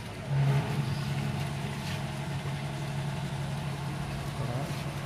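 A diesel fuel dispenser's pump motor runs with a steady low hum while diesel flows from the nozzle into a plastic jerrycan. The hum comes up about a third of a second in.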